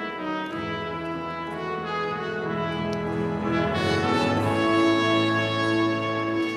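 Guido Schumacher pipe organ playing slow, sustained chords over a held bass note, growing louder about four seconds in.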